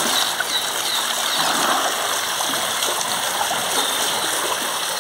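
Steady rush of water from a pipe jet pouring into an elephant's bathing tank, with the elephant splashing in the water.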